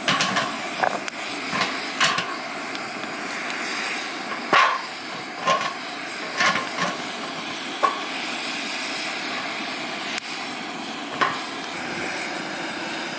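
Split firewood logs set down and shifted on the metal lid of a cast-iron kazan: about a dozen sharp wood-on-metal clunks at irregular intervals, some with a short ring, over a steady hiss.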